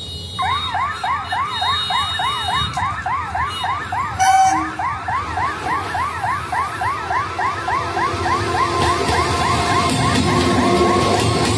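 A warbling electronic siren, rising and falling about four times a second, sounds almost throughout, with a brief loud blast about four seconds in. From about eight seconds in, the running noise of an electric multiple-unit local train passing close builds underneath.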